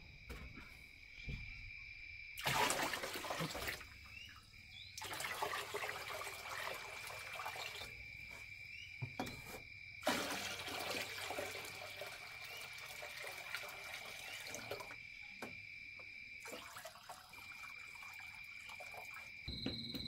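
Water splashing or pouring in three spells, the longest lasting several seconds, over a steady high-pitched tone.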